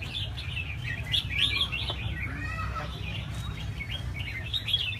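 Many caged red-whiskered bulbuls singing together: dense, overlapping chirps and warbled phrases, over a steady low rumble.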